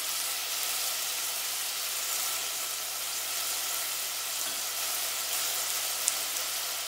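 Chopped onion frying in oil in a stainless steel pot: a steady sizzle, with one short tick about six seconds in.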